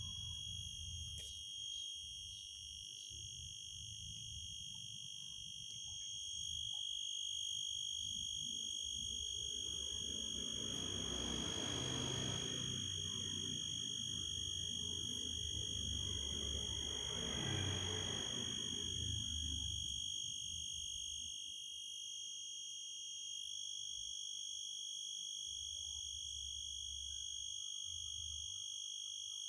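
Shih Tzu scratching and nibbling at its very itchy coat: rustling of fur and paws, loudest in two spells in the middle. A steady high-pitched whine runs underneath throughout.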